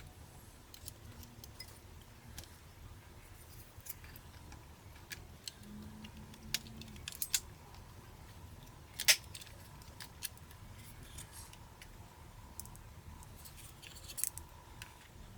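Scattered small sharp clicks and taps of tools and parts handled while a Canon T6 (1300D) camera is taken apart, the sharpest about nine seconds in, over a low steady hum.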